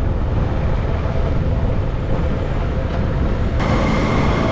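CFMoto NK 250 motorcycle running on the road, its engine heard under heavy wind rumble on the action camera's microphone. About three and a half seconds in, the sound suddenly gets brighter, with a few steady tones added.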